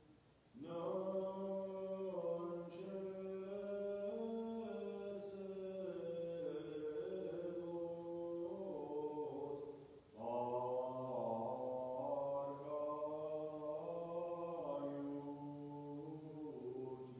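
Sung liturgical chant of the Armenian church: sustained vocal lines moving stepwise in pitch, in two long phrases with a brief breath break about ten seconds in.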